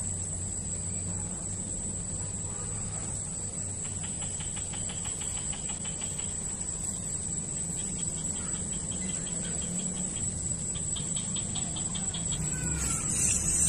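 Insects shrilling: a steady high-pitched drone, joined by runs of rapid, evenly spaced chirping pulses about four seconds in and again from about eight seconds. A louder hiss rises near the end.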